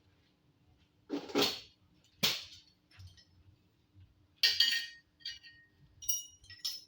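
A series of metal clanks and clinks. Two duller knocks come about a second and two seconds in, then sharper hits that ring briefly later on, like steel pieces being knocked or set down against each other.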